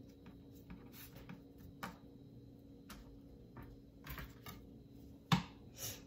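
Light scattered taps and soft handling noises of hands working dough on a wooden pastry board, with one sharper knock about five seconds in.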